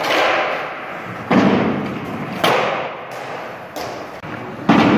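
Skateboard tricks on a hardwood gym floor: four sharp board smacks of pops and landings, each ringing out in the large hall.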